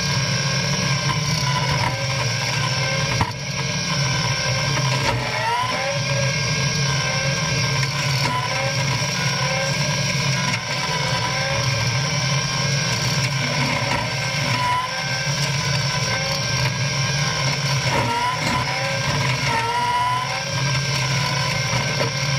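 Caterpillar 297C compact track loader's diesel engine and hydraulics running hard as it drives a front-mounted hydraulic bush hog through brush: a steady drone with a high whine. Its pitch sags and recovers several times as the cutter takes on load.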